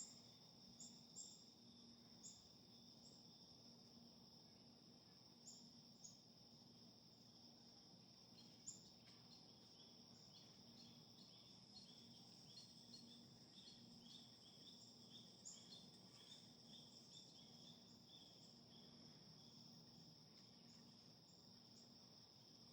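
Faint, steady evening chorus of crickets and other insects trilling, with runs of short chirps in the middle and a few soft clicks.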